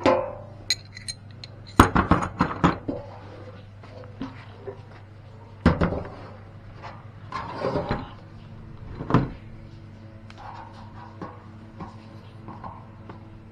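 Metal hardware being handled, clanking and clinking: a ringing clank at the start, a quick run of clinks about two seconds in, more clatters around six and eight seconds, and a last knock about nine seconds in, over a faint steady hum.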